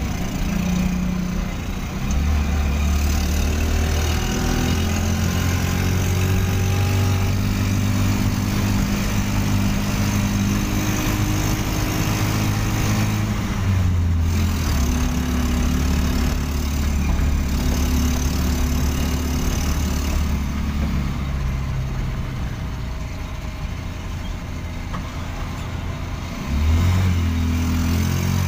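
A motorcycle engine fitted in a small van, running under way and heard from inside the cabin together with road noise. The engine note changes pitch and steps a few times, and grows louder near the end.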